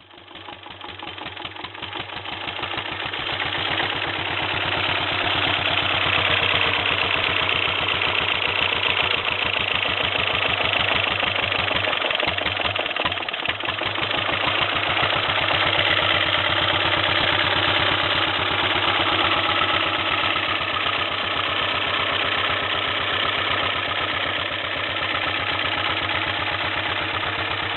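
An engine idling steadily with an even, fast low pulse. It fades in from silence over the first few seconds.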